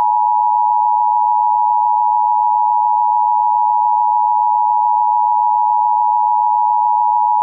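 Emergency Alert System attention signal: a loud, steady two-tone alert tone held without a break.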